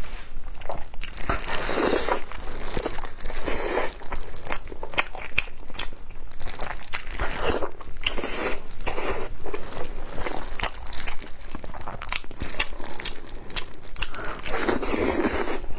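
Close-miked eating of braised pork hock: bites and chewing as the meat is pulled and gnawed off the bone, with many quick mouth clicks and several louder, second-long stretches of tearing and chewing.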